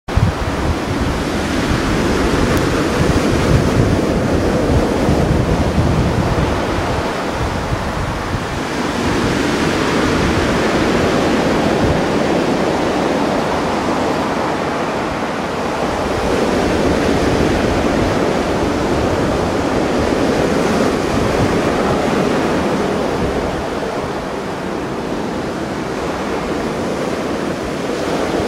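Mediterranean Sea waves breaking and washing on the shore, swelling and ebbing about every eight seconds, with wind rumbling on the microphone, strongest in the first several seconds.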